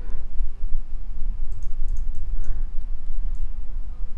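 A few faint computer mouse clicks, scattered and irregular, over a steady low hum.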